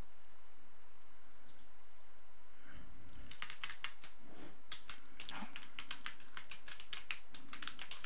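Typing on a computer keyboard: a quick run of keystrokes beginning about three seconds in, just after a soft low thump.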